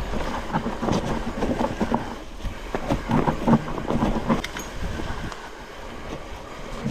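Titanium hardtail mountain bike rolling down a leaf-covered singletrack: tyres crackling over dry leaves and dirt, with a dense run of clicks and rattles from the bike over bumps and a low rumble underneath. It is busiest around the middle and eases off a little near the end.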